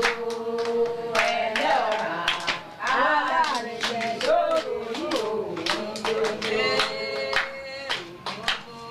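Singing with hand clapping keeping a steady beat; the voice holds long notes and slides between them.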